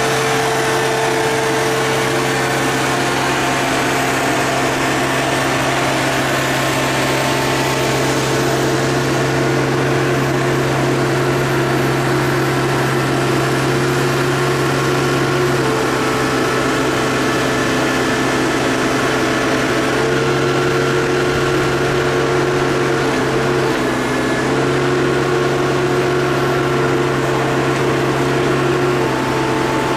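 Engine and hydraulics of a scrap-yard grapple loader running steadily while it swings a crushed sheet-metal bale, a constant hum whose pitch dips and shifts slightly a few times as the load on the hydraulics changes.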